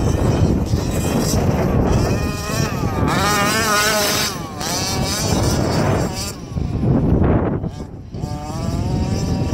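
Losi 5ive-T's OBR 47cc two-stroke petrol engine running hard as the truck tears across loose dirt, its pitch wavering up and down as the revs rise and fall.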